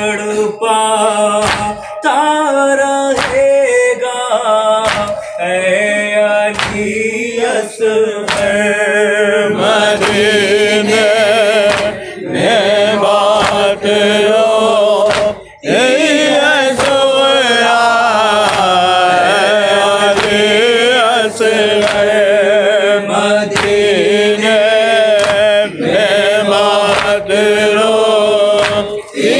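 Urdu noha (lament) sung by a male reciter into a microphone, with a group of men singing along in chorus. Sharp rhythmic strikes of matam, hands beating on chests, keep time at roughly one or more a second.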